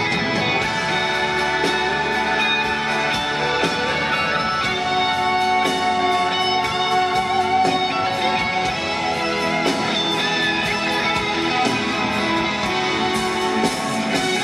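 A live band playing a slow rock ballad, with guitars and violins over drums, recorded from the arena audience.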